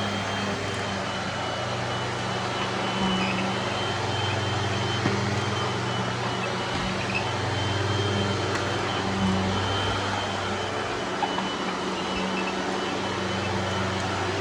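Panasonic vacuum cleaner running steadily: a constant rush of air over a low motor hum, with a thin, steady high whine.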